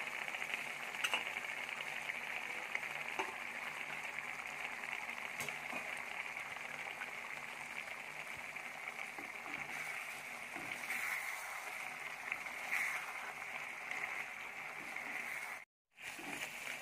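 Chicken curry with freshly added gongura (sorrel) leaves sizzling in a clay pot, a steady hiss with a few faint crackles. The sound cuts out briefly near the end.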